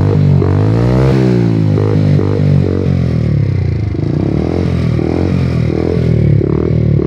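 50cc Joy Plus moped engine running through an aftermarket aluminium Roncar exhaust, revved up and down repeatedly. There is one longer rise and fall about a second in, then a string of short throttle blips.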